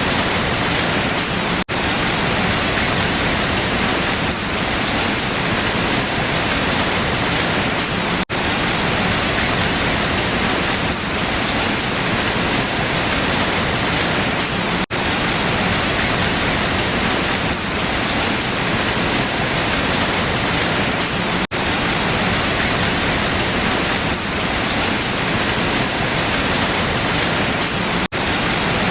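Steady heavy rain falling on leaves, an even patter with no single drops standing out. The sound cuts out very briefly about every six or seven seconds.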